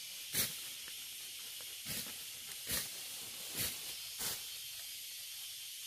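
Five short, crisp snaps and rustles of grass and fern stems as they are pulled or cut by hand, over a steady high hiss.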